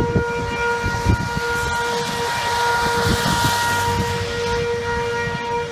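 Outdoor tornado warning siren sounding one steady tone, with wind rumbling on the microphone and a car passing on the road about halfway through.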